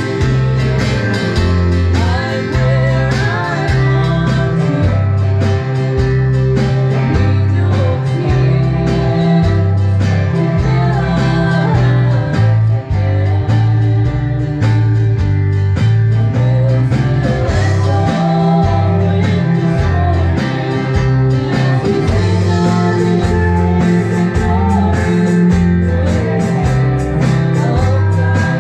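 Small band playing live: a woman singing over electric guitars, a stepping bass line and a drum kit keeping a steady beat.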